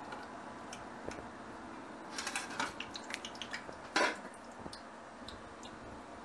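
Metal cookware being handled: a run of light clinks about two seconds in, then one louder metallic clank about four seconds in.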